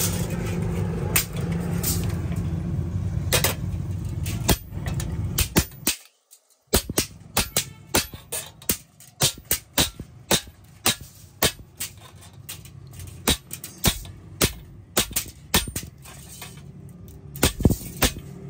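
A steady low machine rumble, then, after a short break about six seconds in, a long run of sharp hammer strikes on hot metal, about one to two a second, each ringing briefly, as a sickle blade is forged.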